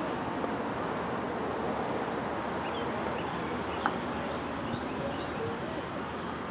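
Steady wind noise on the microphone, with one sharp clack about four seconds in: a croquet mallet striking a ball. Faint bird chirps come and go in the middle.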